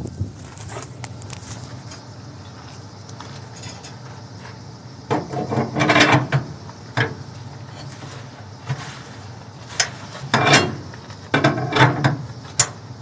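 Flatbed trailer strap winch being tightened with a winch bar: the ratchet gear and bar clicking and clanking in short bursts, a cluster about halfway through and several more near the end.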